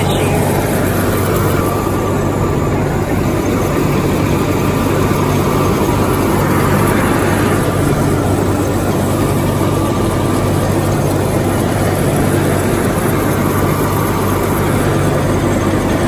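Gleaner F2 combine harvester running steadily, its engine and machinery giving a constant low hum.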